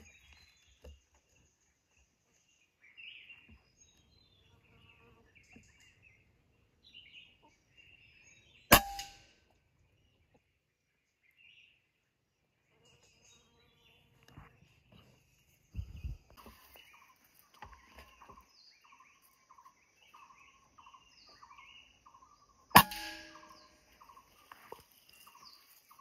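Two shots from a PCP air rifle, each a sharp crack with a brief metallic ring, about 14 seconds apart. Between them birds chirp faintly, and in the last third a bird repeats a short note over and over.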